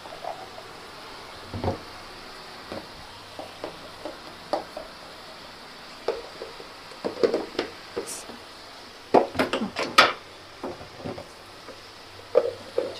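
Scattered clinks and scrapes of a metal spatula against a metal kadai while chopped onions are stirred, in short irregular clusters that are busiest past the middle.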